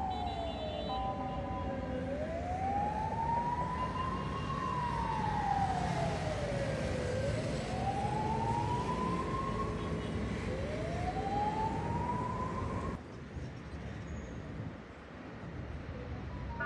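Ambulance siren in a slow wail, its pitch sliding down and back up every few seconds, over a low rumble of street traffic. The siren cuts off abruptly about three-quarters of the way through.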